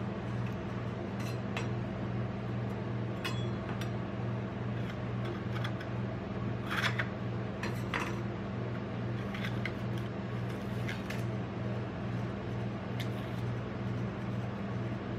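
Gold foil seal being peeled and torn off a glass Nutella jar: scattered crinkles and short rips, the loudest two about halfway through. A steady low hum runs underneath throughout.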